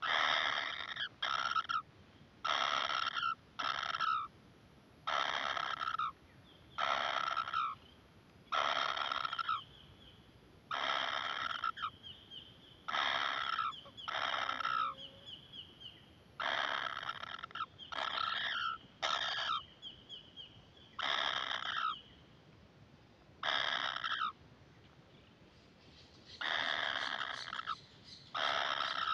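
Kingfisher nestlings giving harsh, rasping begging calls, each about half a second to a second long, repeated every second or two.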